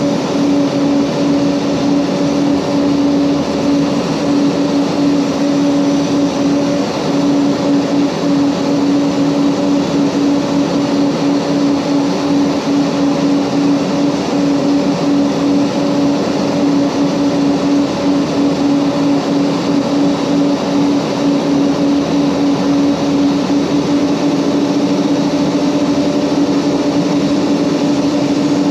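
Mitsubishi MU-2's twin Garrett TPE331 turboprop engines and propellers droning steadily as heard in the cockpit, a strong steady hum over a broad rush of noise. The hum rises slightly in pitch near the end.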